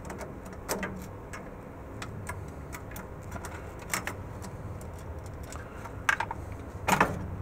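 Scattered light clicks and small metal clatter as the tape-library robot's gripper assembly is unscrewed and lifted free by hand, over a steady low hum.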